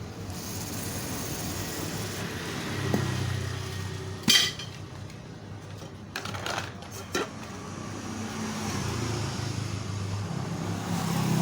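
Aerosol carburettor cleaner hissing as it is sprayed into a grass-cutter carburettor, with sharp metallic clicks and knocks of the small carburettor parts being handled, the loudest about four seconds in.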